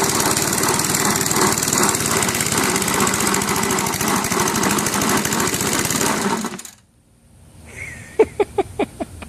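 Honda lawnmower engine run flat out, rough and pulsing, being driven to destruction; it cuts out suddenly about two-thirds of the way in, as the gasket blows. Near the end comes a quick run of sharp knocks.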